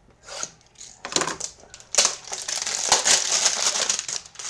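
Packaging of a trading-card hanger box being torn and crumpled open by hand: dense crinkling and crackling with sharp clicks, starting about a second in and easing off near the end.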